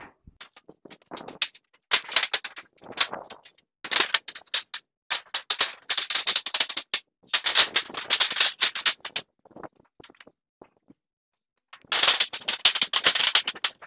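Thin perforated plastic lay-flat pipe crackling and rustling as it is unrolled and handled. The sound comes in several bursts of one to two seconds with short pauses between.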